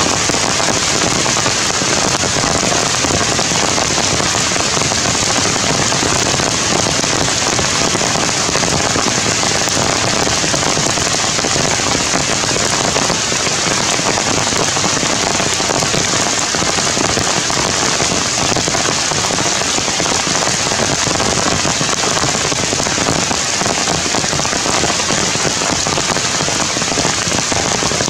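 Steady rain falling, a dense, even patter of drops that keeps on without let-up.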